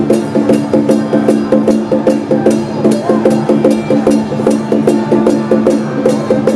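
Traditional temple-procession percussion: drums, gongs and cymbals beaten in a steady fast rhythm, about four or five strikes a second, with the gongs' pitched ringing under the cymbal crashes.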